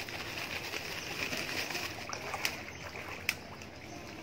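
Fish splashing at the water's surface as they snatch food tossed to them, with two sharper splashes in the second half.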